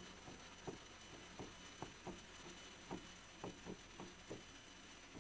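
Faint, irregular taps of a stylus on an interactive display's screen as words are handwritten, roughly two taps a second.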